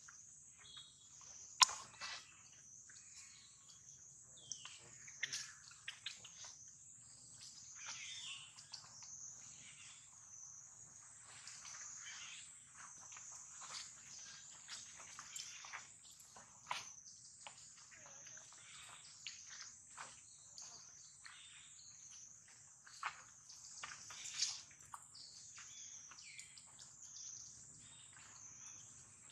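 A faint, continuous high insect drone that swells and fades about once a second, with scattered light rustles and clicks of animals moving over dry leaves. One sharp click stands out about one and a half seconds in.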